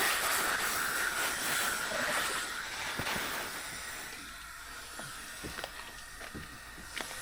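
Power sander running on the painted hood of a 2019 Subaru STI, scuffing the paint over hail dents: a steady hiss with a whine, cutting in abruptly, with a few light knocks from about three seconds in.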